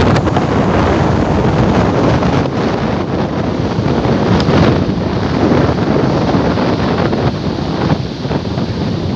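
Big sea waves breaking and washing on the shore, a continuous loud rush, with strong wind buffeting the microphone.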